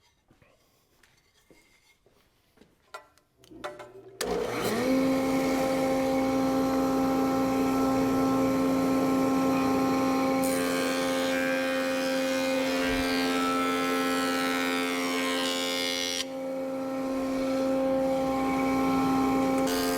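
Power planer switched on about four seconds in, spinning up to a steady hum. From about ten seconds a board feeds through it, adding the harsher noise of the cutterhead taking wood off until about sixteen seconds. The cutting noise starts again near the end.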